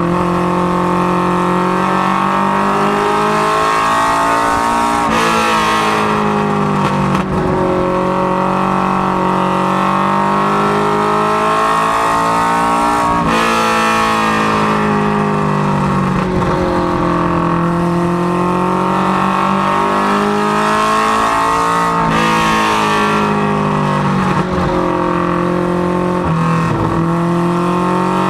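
Ford Mustang LX notchback ministock race car's engine heard from inside the cockpit at speed, its pitch climbing as it accelerates down the straights and dropping sharply each time the driver lifts for a turn, about every eight seconds.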